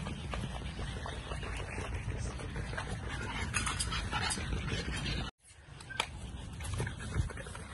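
American bully puppy whimpering and panting over a steady low rumble. The sound cuts out suddenly for a moment about five seconds in.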